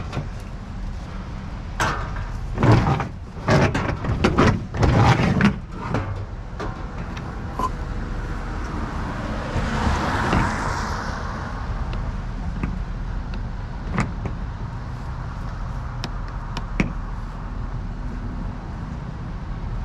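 Several loud knocks and clatters of items and doors being handled in the first few seconds, then a swelling whoosh near the middle and a few scattered clicks, over the steady low hum of a vehicle engine idling.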